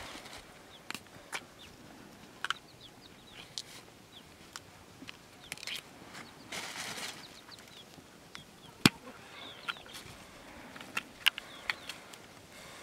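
Scattered small clicks and scrapes of vegetables being peeled by hand with a knife, with a longer rustle about seven seconds in and one sharp click a little after. Small birds chirp faintly in the background.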